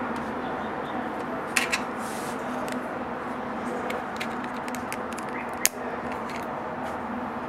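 Small plastic clicks and handling of an SD card reader and a USB connector: a pair of light clicks about a second and a half in, then one sharp click near the end as the reader seats in the socket, over a steady hiss and faint hum.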